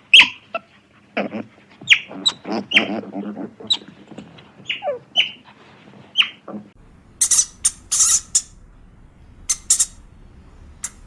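A rapid run of short animal calls, many sliding down in pitch. About two thirds of the way through they give way to a few harsh, hissing bursts spaced about a second or more apart.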